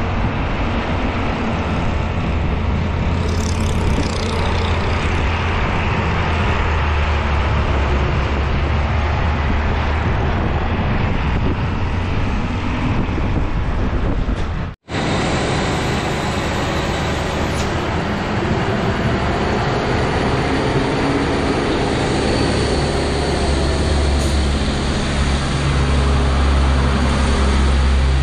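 Heavy diesel trucks running past at close range, a steady low engine drone with tyre and road noise. After a break about halfway, a container trailer truck passes close and grows louder near the end.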